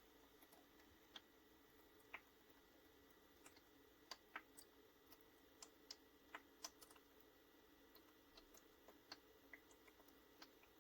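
Near silence: a faint steady hum with scattered faint, irregular ticks and clicks.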